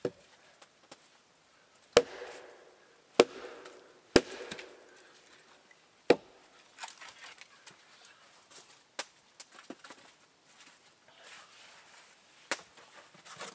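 Axe chopping firewood on a chopping block. Three sharp strikes come about a second apart, each with a brief woody ring, then another strike, a couple of lighter knocks and one last strike near the end.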